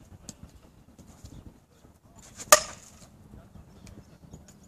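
A softball bat hitting a pitched ball about halfway through: one sharp crack with a short ring after it.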